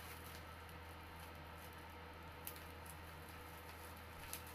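Quiet room with a steady low hum, and two faint clicks of a small hand tool and chair parts being handled, about halfway and near the end.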